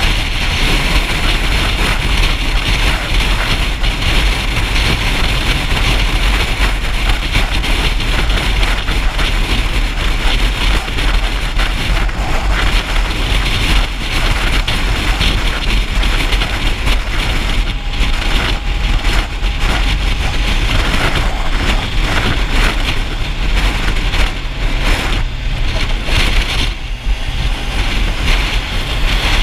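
Motorcycle riding in traffic: steady wind rush over the microphone, with engine and road noise beneath it.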